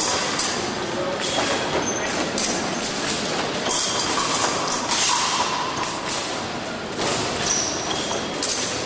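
Fencing-hall sound during an épée bout: fencers' footwork thuds and stamps on the piste, with brief high squeaks and small clicks over a steady din of the large hall.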